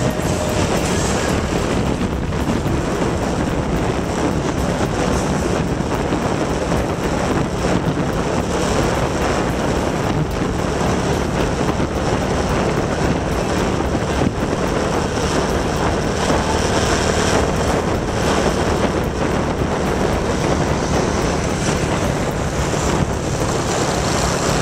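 Wind rushing over the microphone, with engine hum and road noise from a motorbike riding steadily through city traffic.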